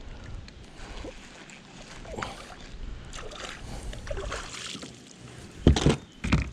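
Small water and handling noises from a canoe on a river: faint splashes and light knocks against the hull. Two loud, sharp thumps come near the end.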